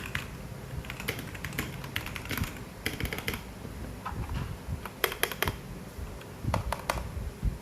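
Keys being typed on a Redragon K617 Fizz 60% mechanical keyboard: uneven runs of key clicks with short pauses between them.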